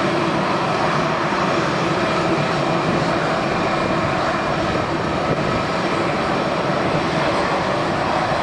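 Airbus A319's CFM56-5B turbofan engines running as the airliner rolls out along the runway after landing. The engine noise is loud and steady, with a few faint whining tones.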